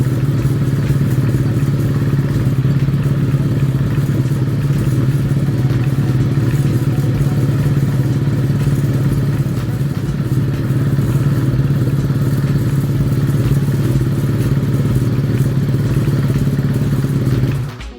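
Kawasaki air-cooled inline-four motorcycle engine idling steadily through a megaphone-type aftermarket silencer. The sound cuts off just before the end.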